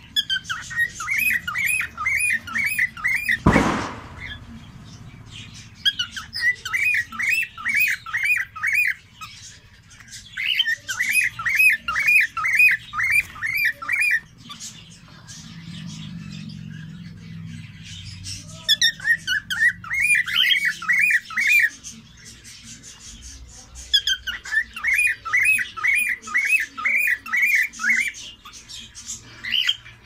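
Cockatiel whistling in bursts of quick repeated chirping notes, about four a second, each burst lasting two to four seconds with pauses between. A single sharp knock comes about three and a half seconds in.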